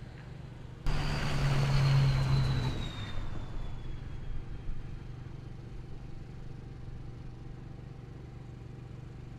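A motor vehicle passing by. It comes in abruptly about a second in, with a high whine that slowly falls in pitch as it goes past, then fades to a steady low hum.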